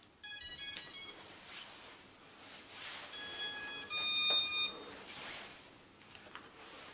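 Startup tones from a quadcopter's brushless motors, driven by the ESCs as the flight battery is plugged in: a quick run of short beeping notes, then after a pause two longer beeps at different pitches, the second louder.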